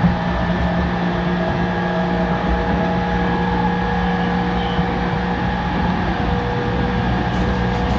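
E231-series electric train standing still with its on-board equipment humming steadily: a few constant tones over a low rumble.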